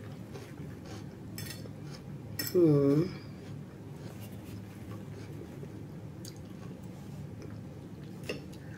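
A person eating from a plate: a few faint clicks of cutlery against a steady low hum, and a short hummed 'mmm' whose pitch dips and rises again about two and a half seconds in.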